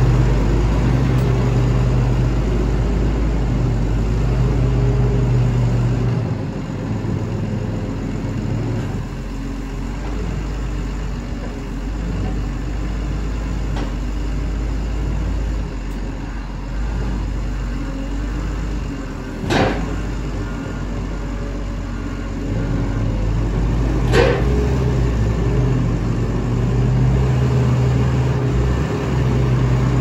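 New Holland W170D wheel loader's diesel engine running as the loader drives and works, louder at the start and end when the machine is close and fainter in between. Two sharp knocks stand out in the second half, about five seconds apart.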